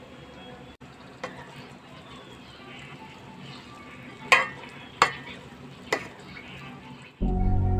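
A spatula stirring grated carrots and chopped nuts in a metal pot over a faint frying sizzle, with a few sharp knocks of the spatula against the pot, three of them about a second apart past the middle. Background music cuts in abruptly near the end.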